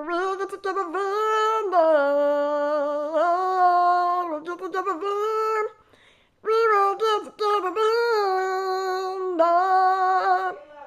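A girl singing wordlessly in a high, squeaky put-on voice: long held notes that slide up and down in pitch, with a short break about six seconds in.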